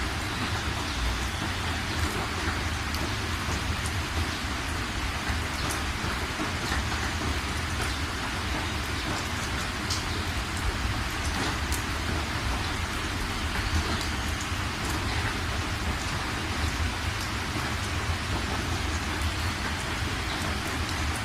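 Steady heavy rain falling, with scattered drop ticks and a steady low rumble underneath.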